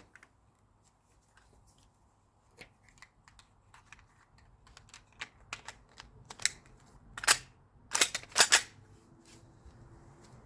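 Sharp mechanical clicks and clacks from an S&T Type 97 airsoft bolt-action sniper rifle being handled. The clicks grow louder and come thicker, with the loudest cluster of clacks about two-thirds of the way through.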